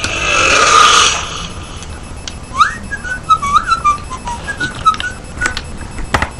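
A brief rush of noise, then a run of short whistled notes sliding up and down in pitch, with a few light clicks near the end.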